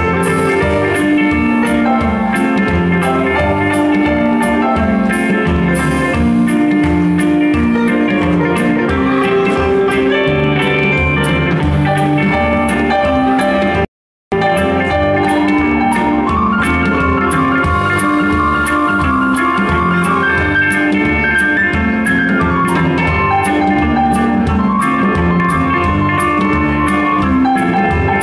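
Blues band playing live: electric guitars and keyboard over a drum kit, with a steady beat on the cymbals. The sound cuts out completely for a split second about halfway through.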